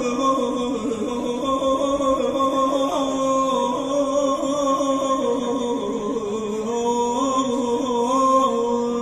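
A man's solo voice singing a slow, unaccompanied Persian classical vocal line (āvāz), holding long notes with wavering ornaments, amplified through a public-address system.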